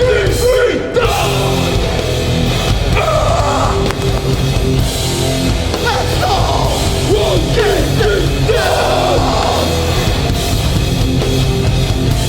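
Hardcore band playing live at full volume: distorted guitars, bass and drums, with shouted vocals coming in around three seconds in and again in the middle.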